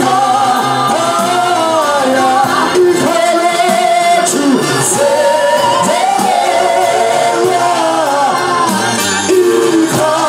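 Gospel singing with music: voices carry a melody in long held notes over a steady low accompaniment.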